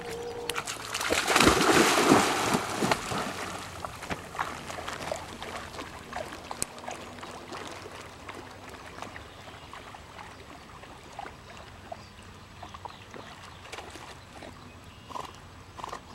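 Yellow Labrador retriever plunging into the water with a loud splash about a second in, then swimming with quieter sloshing and lapping of water.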